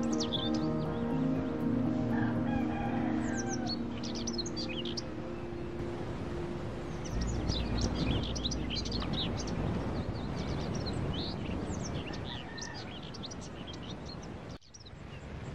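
A rooster crowing and small birds chirping amid farmyard fowl sounds, with background music fading out over the first few seconds.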